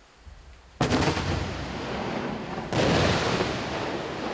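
Demolition blast of a large pit charge of collected unexploded shells, landmines and ammunition, set off with detonating cord. A sudden blast about a second in runs on as a heavy rumble, with a second blast about three seconds in.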